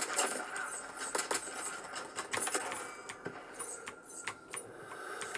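Shooter-game gunfire and effects played through a portable gaming monitor's small built-in speakers: a string of sharp shots and clicks, thin, with almost no bass.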